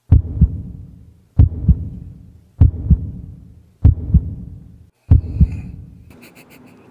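Heartbeat sound effect: five loud, low double thumps, one about every second and a quarter.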